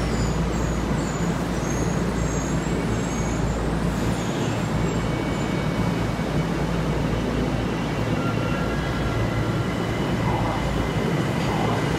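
Tokyo Metro Ginza Line train standing at an underground platform with a steady rumble, then starting to pull away; a faint motor whine comes in about eight seconds in as it begins to move.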